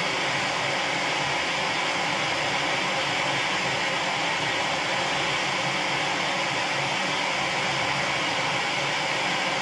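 Steady rushing hiss of a heating tool held on a stuck rear-axle part, heating it to free it while a puller holds it under heavy strain.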